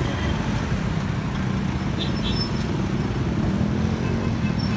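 Motorcycle engine running steadily at low speed in dense city traffic, with the engines of surrounding cars, buses and motorbikes mixed in as a continuous low traffic noise.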